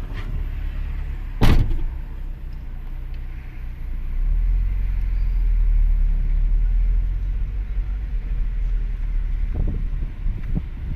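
Low rumble of a car, growing louder for a few seconds in the middle, with one sharp knock about a second and a half in and a couple of fainter knocks near the end.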